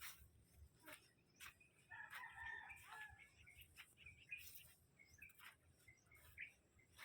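A rooster crowing faintly, one crow of about a second about two seconds in, with scattered clicks and small bird chirps around it.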